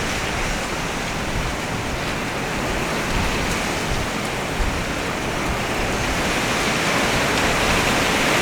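Strong typhoon wind rushing steadily, a dense hiss that swells somewhat near the end.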